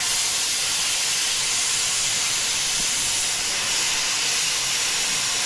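Cutting torch hissing steadily as it cuts through a car's coil spring, starting suddenly at full strength.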